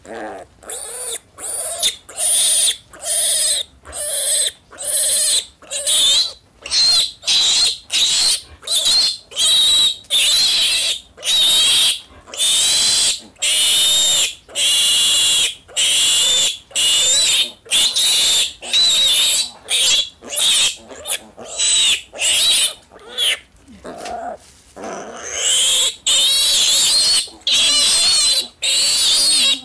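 Piglet squealing loudly and without let-up, high cries one after another broken only by quick breaths, some held for several seconds, as it is restrained for castration.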